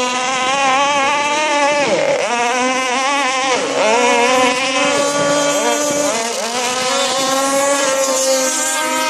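Small high-revving boat engine with a can-type exhaust pipe, revved up and down repeatedly, its pitch dropping sharply and climbing again several times.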